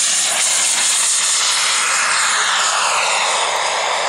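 Radio-controlled model jet taking off at full power: a loud, steady engine rush and whine. From about halfway through, the whine's pitch falls as the jet passes and climbs away.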